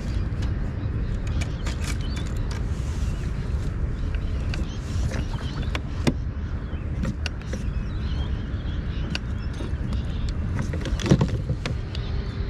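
A steady low rumble, with scattered small clicks and knocks from a spinning rod, reel and line being handled in a plastic kayak. A sharper knock comes about six seconds in and another about eleven seconds in.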